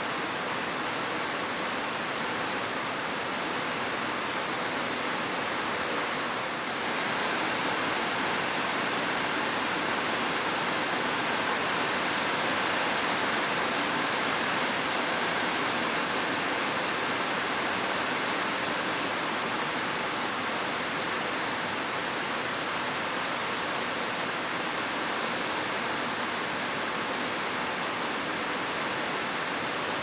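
Heavy rain falling in a steady, even hiss, growing a little louder about seven seconds in.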